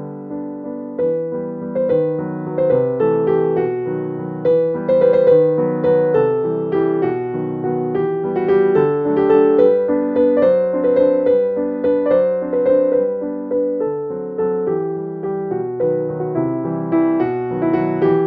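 Background piano music: a steady, even flow of notes.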